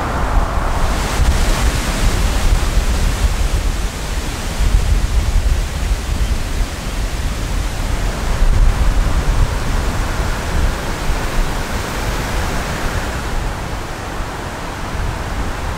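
Strong wind rushing through the forest canopy, with wind buffeting the microphone in a fluttering low rumble.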